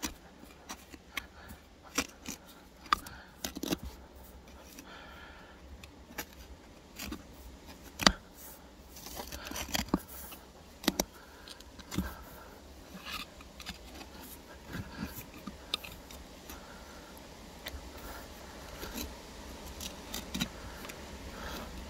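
A small hand digging tool scraping and poking into soil, giving irregular scrapes and clicks; the sharpest click comes about eight seconds in.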